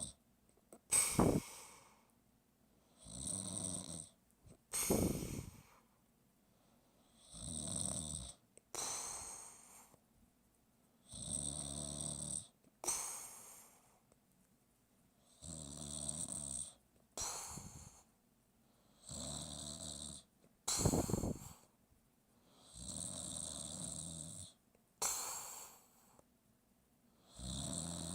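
Steady, regular snoring. Each breath is a long rasping snore followed by a short, sharper breath, repeating about once every four seconds.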